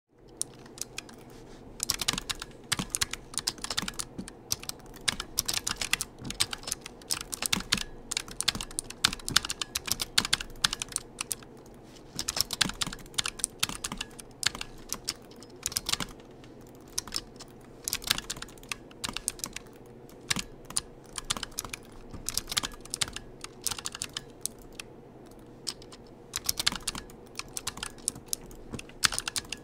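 Computer keyboard being typed on: rapid runs of key clicks in bursts, with short pauses between runs.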